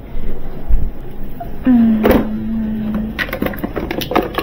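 A low thump, then a low hum lasting about a second and a half, then plastic bowls and colanders clattering and knocking together as a stack of them is sorted through.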